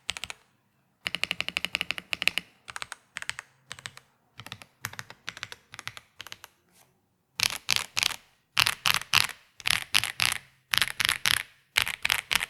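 Typing on an EPOMAKER x AULA F87 Pro TKL mechanical keyboard with stock LEOBOG Greywood V4 linear switches and PBT Cherry-profile keycaps on a gasket-mounted PC plate. Quick runs of key presses give way, about halfway through, to louder groups of fast keystrokes.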